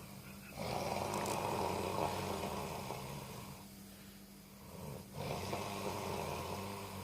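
Snoring: two long snores, the first starting about half a second in and lasting nearly three seconds, the second starting about five seconds in and fading out.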